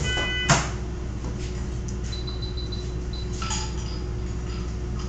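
Veterinary patient monitor beeping: a brief multi-tone beep right at the start, then a run of short high beeps about two seconds in, over a steady low hum. A sharp knock about half a second in is the loudest sound, with a few light clinks a little after the middle.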